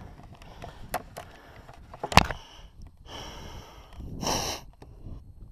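A person breathing hard, with two long, loud breaths in the second half, and a single sharp knock about two seconds in.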